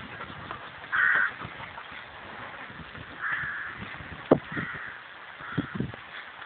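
A crow cawing four times, short harsh calls spread across the few seconds, the first the loudest. Between the calls come a few soft rustles and steps in dry grass.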